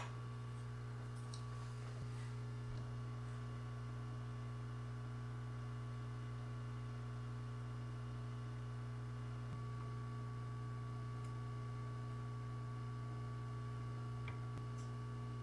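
Hot air rework station running with a steady low hum while hot air is blown onto a graphics card's circuit board to desolder burnt power components.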